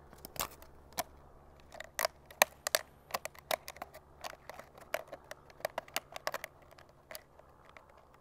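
Thin plastic bottle pieces being handled and pressed together: irregular clicks and crinkles.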